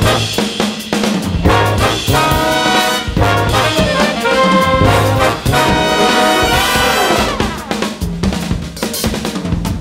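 A jazz big band playing at full volume: trumpets and trombones with saxophones over a drum kit and bass. There is a downward slide in the horns about seven seconds in.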